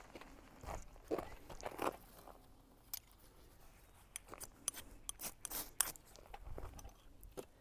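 Footsteps crunching on dirt and gravel, then a ferrocerium rod scraped hard with a striker several times in quick succession, sharp high scrapes in the second half. These are the strikes that set the tinder alight.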